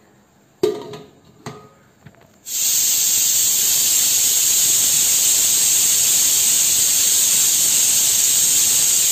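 Pressure cooker letting off steam through its weight valve: a loud, steady hiss (the cooker's whistle) that starts suddenly about two and a half seconds in, the sign that it has come up to pressure. Before it, a few short knocks.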